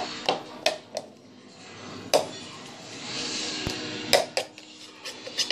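Dishes and cutlery clinking: a series of separate sharp clinks and knocks, with a rustling stretch in the middle.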